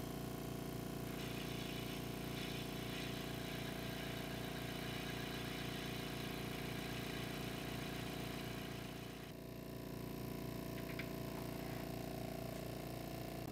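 Wood lathe running steadily while a Forstner bit in a drill chuck bores into the spinning wood blank, a cutting hiss over the motor hum from about a second in until about nine seconds in; after that only the steady hum.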